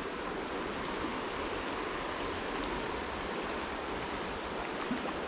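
Steady rush of a shallow creek's current flowing around the wader.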